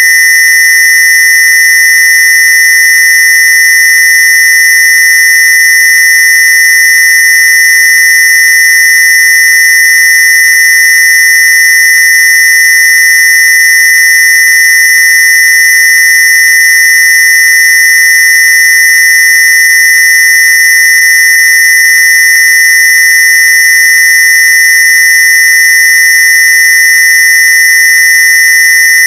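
Electronically generated square-wave tone held at one steady high pitch, loud and shrill like a buzzer: one of a sequence of Rife/AWG-list frequencies.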